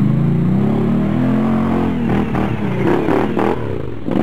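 ATV engine revving under load as the quad climbs out of a muddy gully. The pitch rises and then falls over the first two seconds, followed by rougher engine and clattering noise.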